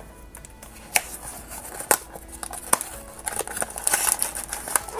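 Small cardboard blind box being opened by hand: sharp snaps of the card flap and tab at about one, two and nearly three seconds, then rustling of card and packaging as the contents are slid out near the end.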